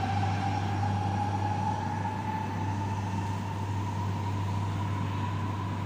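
Madrid Metro Serie 3000 electric train accelerating away into the tunnel. The whine of its traction motors rises steadily in pitch and slowly fades, over a steady low hum.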